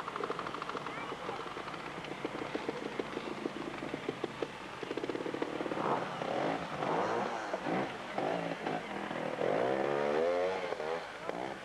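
Trials sidecar outfit's motorcycle engine running under load, revving up and down as the outfit climbs a rocky section.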